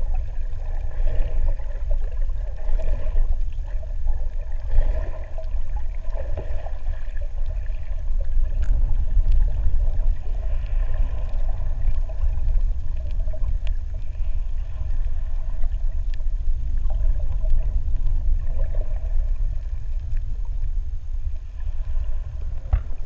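Underwater sea ambience picked up by a submerged camera: a steady low rumble with soft, irregular swishing and gurgling on top.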